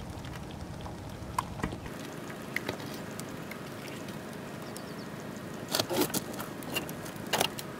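Scattered clicks and rustles of hands working a mud crab free from a nylon gill net, over steady background noise; a cluster of louder clicks comes about six seconds in and another near the end.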